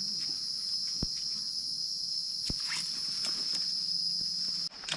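Steady, high-pitched, continuous drone of forest insects, cutting off abruptly near the end. A few sharp snaps, like twigs or dry leaves underfoot, come through it.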